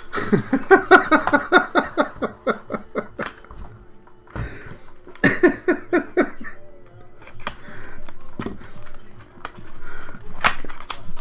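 A man laughing in two runs of quick, rhythmic 'ha-ha' bursts, the first about three seconds long. After the laughter comes soft rustling of a cardboard trading-card pack being handled and opened, with a sharp click near the end.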